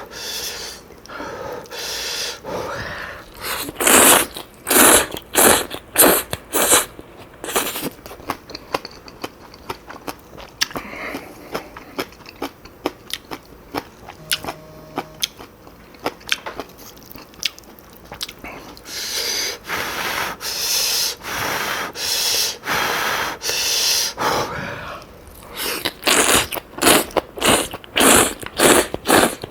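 Close-miked eating of Chapagetti black bean noodles with kimchi: runs of loud bites and slurps, with a quieter stretch of chewing about halfway through.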